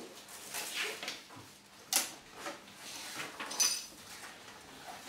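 Scattered handling noises around a meeting table: papers rustling and being shuffled, with a sharp click about two seconds in and a brief light clink a little later.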